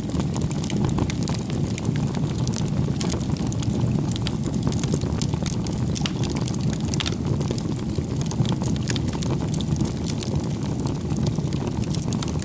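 Wind rumbling steadily on the microphone, with scattered small crackles and pops from a campfire where chicken is grilling.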